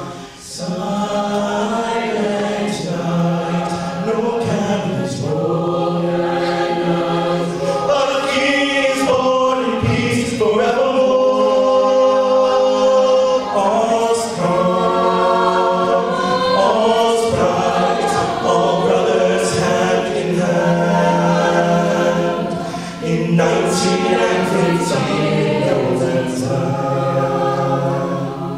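Mixed-voice a cappella ensemble singing unaccompanied, holding chords that change every second or two.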